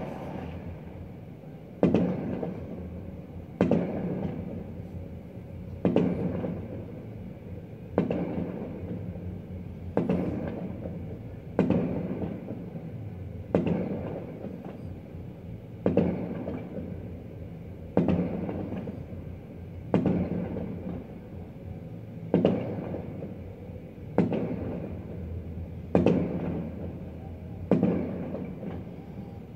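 Fireworks shells bursting at a steady pace, about one every two seconds, each a sharp bang followed by a long rumbling echo that dies away.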